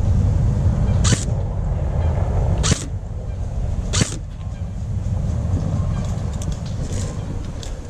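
Wind rumbling on the microphone, with three sharp cracks spaced a second or two apart and a few fainter clicks near the end.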